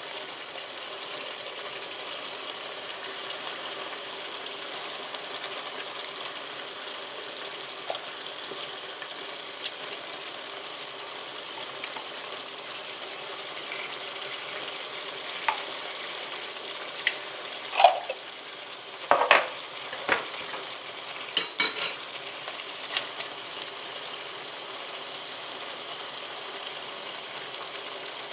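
Ground-beef and sausage tomato sauce sizzling steadily in a skillet. About halfway through, a run of clicks and knocks as a spoon scrapes tomato paste out of a metal can and taps it against the pan.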